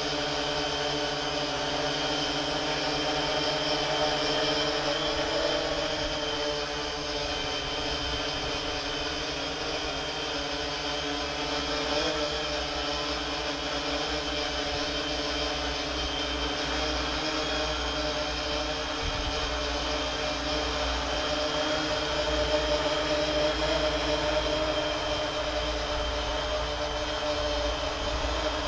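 3DR IRIS quadcopter hovering in loiter mode: its four electric motors and propellers make a steady buzzing hum of several tones that waver slightly as it holds position, over a low rumbling noise.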